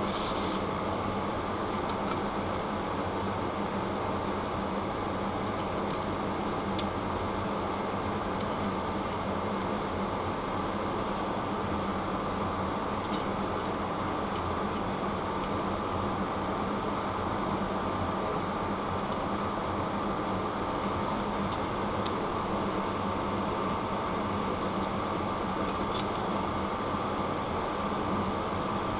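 Steady machine hum, like a fan running, with a few faint, sharp clicks scattered through it as a bicycle cassette cog's tabs are pried loose one contact point at a time.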